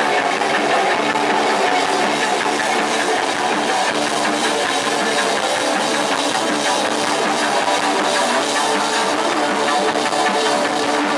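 Post-punk band playing live: electric guitars held over a drum kit in a loud, dense, steady full-band passage.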